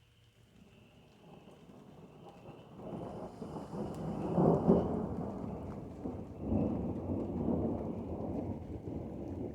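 Rolling thunder: a rumble that builds over a few seconds to its loudest crack about halfway through, swells again shortly after, and then slowly trails off.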